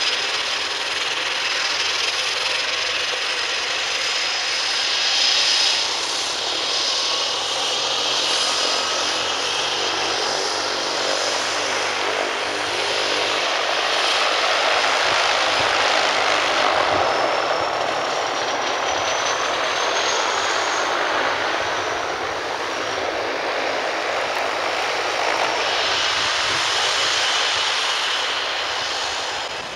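de Havilland Canada DHC-3 Otter floatplane's turboprop engine running after start-up, propeller turning: a steady loud rush with a high turbine whistle, and a high whine that rises in pitch a little past the middle before easing off.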